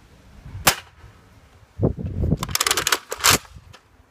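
Nerf Rival Apollo XV-700 blaster, a spring-powered blaster firing foam balls, being shot and primed. There is a sharp snap a little under a second in, then a rattling clatter of the priming handle being worked, ending in another sharp snap.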